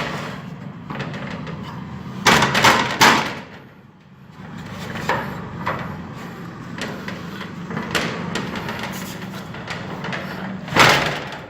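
A shutter being pulled shut, scraping and clattering, bringing its magnet up to the alarm's door sensor. Two louder bursts of knocking come about two seconds in and near the end, over a steady low hum.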